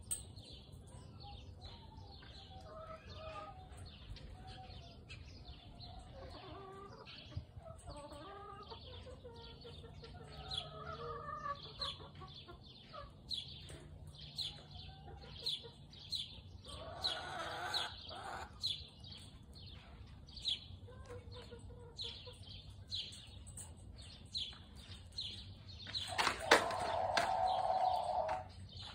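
Backyard chickens clucking softly in their run, with small birds chirping in quick short notes all the while. Near the end a rooster crows loudly for a couple of seconds.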